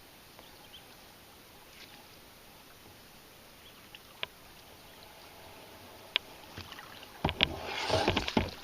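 Kayak paddling on a river: a few faint clicks over quiet water at first, then from about six seconds in several sharp knocks of the paddle against the boat and a short burst of splashing strokes near the end.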